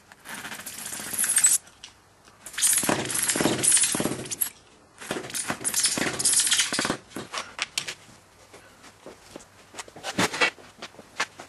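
Utility knife blade slicing through a foam wing in three long cuts. Then a few light clicks and one sharp knock about ten seconds in.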